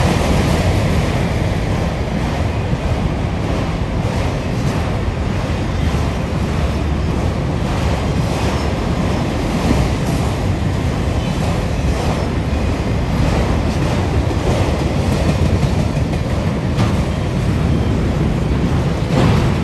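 Freight train of autorack cars rolling past at a steady speed: a continuous rumble of steel wheels on rail, with scattered clicks from the wheels and rail joints.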